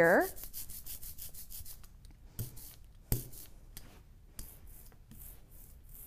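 Rubber brayer rolled back and forth through wet yellow and pink water-soluble block printing ink on an inking slab, blending the two into orange. The brayer makes a repeated rubbing, quick strokes for about two seconds, then slower and fainter, with two louder knocks.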